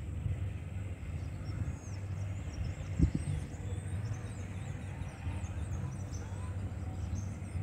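A steady low rumble with birds chirping high above it from about three seconds on, and a single knock about three seconds in.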